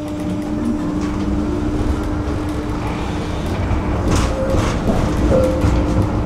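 Tram running on its rails: a low rumble that grows louder in the first second as it gathers speed, under a steady motor hum. A few sharp clacks of the wheels over rail joints or points come about four to five seconds in.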